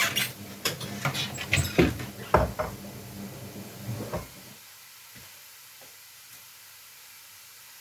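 Kitchen clatter of pots, lids and utensils being handled and set down, a run of sharp knocks over the first four seconds or so, over a steady low hum that cuts off about four seconds in.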